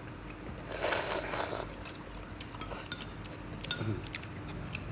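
Wooden chopsticks clicking and clinking lightly against a black clay noodle pot while noodles are lifted, with a brief noisy rush about a second in.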